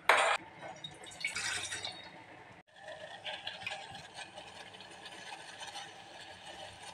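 Water heating in a steel saucepan on a gas burner: a steady hiss with faint rattling and bubbling, after a sharp metallic clatter at the very start.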